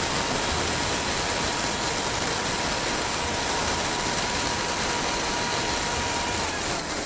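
Indian mixer grinder with a stainless-steel jar running at full speed, dry-grinding roasted ingredients: a loud, steady whirr with a thin whine over it. The motor is switched off at the very end and starts to run down.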